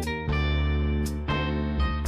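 Background music: plucked guitar and electric piano over a steady bass line.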